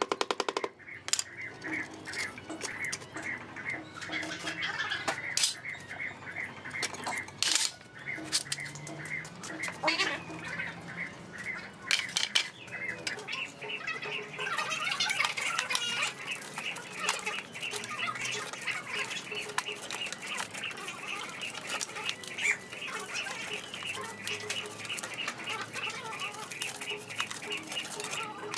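Birds chirping in a quick, steady, repeating pattern, busier in the second half, with a few sharp knocks from the masonry work in the first half.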